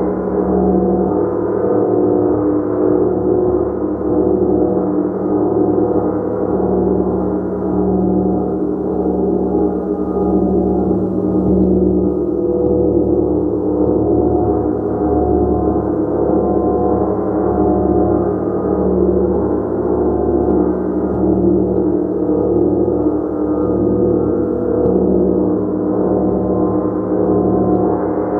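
A gong played continuously, building a steady wash of many overlapping ringing tones, with the low hum swelling and fading about once a second.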